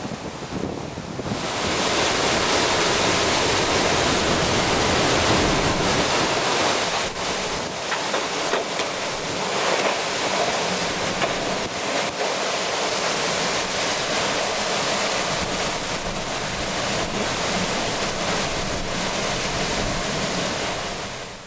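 Hurricane-force wind blowing hard and steadily, with gusts buffeting the microphone. About a second in, the sound turns brighter and hissier.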